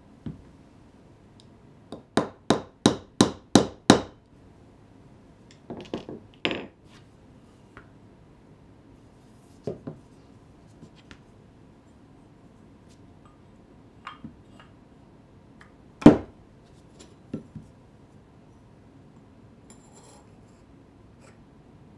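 About two seconds in, a small hammer taps a Japanese plane's wooden body about seven times in quick succession. Then come scattered knocks and clinks, one of them much louder than the rest, as the wooden plane body is handled and its steel blade is fitted back into it.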